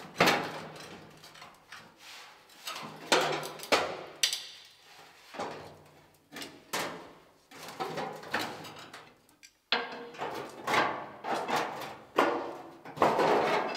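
Irregular knocks, clanks and scrapes of hand-tool work on a bus's inner wheel arch as the panel is pulled and worked loose from the body.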